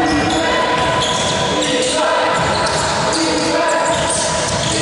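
Basketball being dribbled on a sports hall floor during a game, with players' voices and court noise echoing around the hall.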